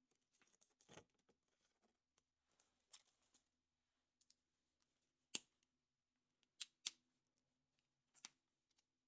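Quiet handling of small plastic toy parts: a few sharp clicks and snaps from about halfway in, the first the loudest, after soft rustling near the start.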